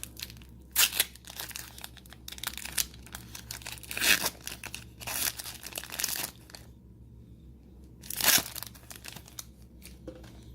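Foil booster-pack wrapper of Magic: The Gathering cards being torn open and crinkled by hand, a run of crackling rustles with louder crinkles about a second, four seconds and eight seconds in.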